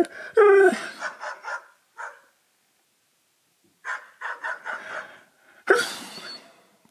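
Husky vocalising in drawn-out, pitch-bending howl-like "talking" sounds, in three or four phrases with a pause in the middle.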